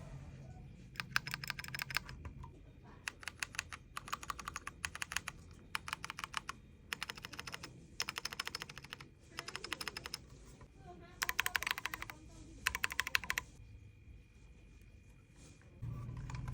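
Typing on a Keychron Q8 Pro mechanical keyboard: about ten short runs of rapid key strokes with brief pauses between them, stopping about three seconds before the end.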